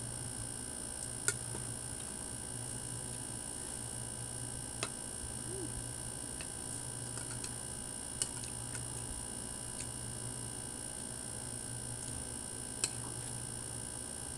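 A fork clinking against a ceramic bowl while eating, four sharp clicks spaced several seconds apart, over a steady low hum.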